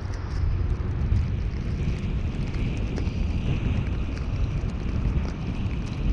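Steady low rumble of a car being driven: road and wind noise, with a faint hiss above it from about two seconds in.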